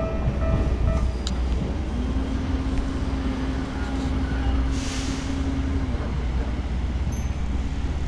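Japanese railway level-crossing warning bell ringing in quick, evenly pulsed electronic dings, stopping about a second in once the train has cleared. A steady low hum follows for a few seconds as the crossing barrier arm lifts, over a constant low rumble.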